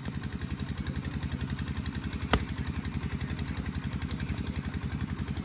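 A small engine running steadily at idle, its even low throb going on throughout. One sharp crack comes about two and a half seconds in.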